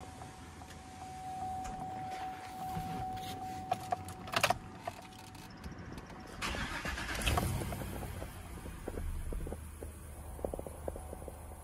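A steady warning chime tone sounds, then keys click at the ignition. The 2014 Chevrolet Silverado 2500's V8 is then cranked by the starter and catches about seven seconds in, settling into a steady low idle.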